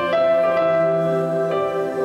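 Electronic keyboard playing slow, held piano-sound chords, with a new chord coming in about a second and a half in.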